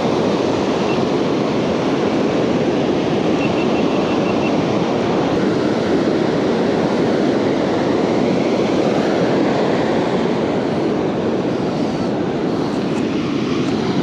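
Ocean surf breaking on a sandy beach: a steady, even rush of waves with no let-up.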